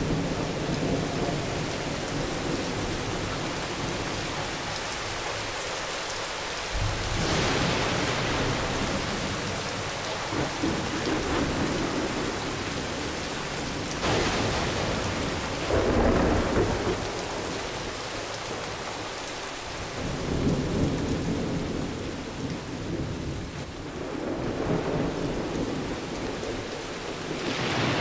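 Steady rain falling, with low rolling rumbles of thunder that swell up about four times.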